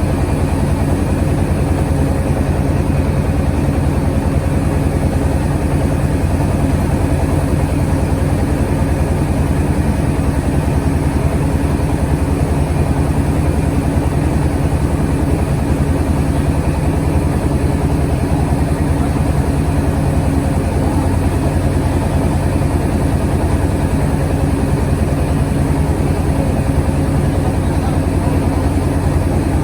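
Engine of a mobile rice-milling vehicle running steadily at constant speed, with an even, unchanging pitch.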